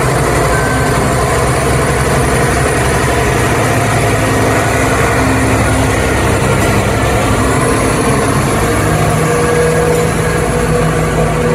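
ScotRail Class 170 Turbostar's underfloor MTU six-cylinder turbocharged diesel engine idling steadily at close range. About nine seconds in, a steadier low tone comes to the fore.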